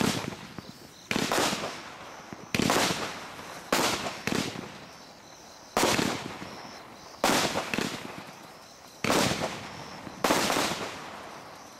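Consumer aerial firework cake (TNT Aerial Power Barrage Pack) firing its shots one after another: about nine sharp bangs at uneven gaps of one to two seconds, each fading away over about a second.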